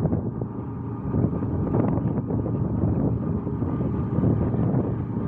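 Wind buffeting the microphone: a loud, low, rushing noise that swells and dips.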